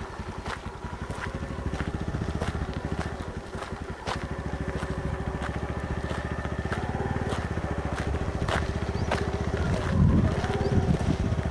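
Vehicle engine running as it drives along a rough dirt track, with scattered knocks and rattles from the bumpy ride; the engine revs up and back down about ten seconds in.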